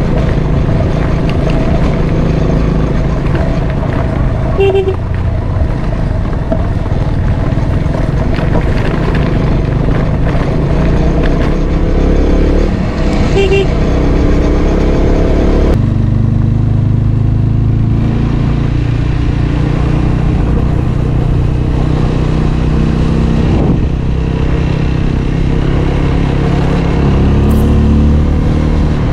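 Motorcycle engine running steadily on the move, with two short horn toots, about five seconds in and about thirteen seconds in. The engine sound changes abruptly about sixteen seconds in.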